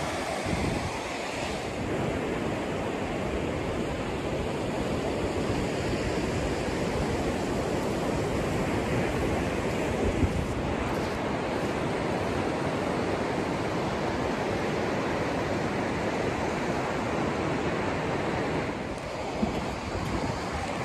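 Surf washing up a sandy beach: a steady rush of small waves, with wind.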